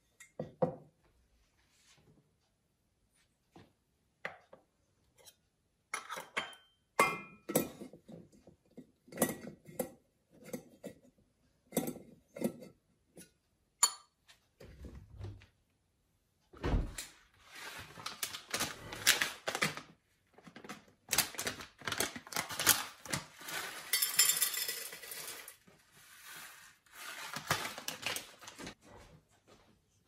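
Porcelain and metal clinks and knocks as a ceramic teapot, its lid and a metal tea infuser are handled on a kitchen countertop, with a couple of dull thuds partway through. In the second half comes a longer stretch of hissing, rustling noise.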